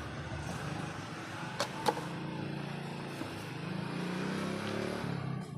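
Steady rumbling hiss of a large aluminium pot of soup boiling on the stove, with two sharp clinks close together about a second and a half in.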